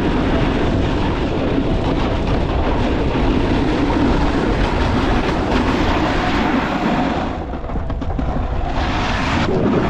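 Snowmobile running at speed: a steady engine drone mixed with the rumble of the ride, easing off briefly about seven seconds in before picking up again.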